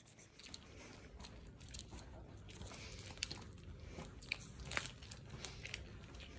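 Faint, irregular crunching and crinkling clicks, scattered and uneven.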